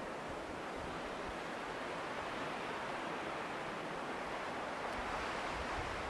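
Wind blowing steadily through conifer trees, an even hiss with no distinct events.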